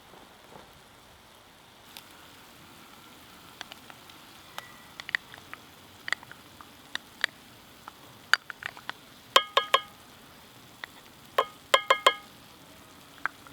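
Food frying in a pan over a wood fire: a faint steady hiss with scattered sharp clicks, then two clusters of ringing metallic taps, a utensil knocking against the pan, about two-thirds of the way in and again near the end.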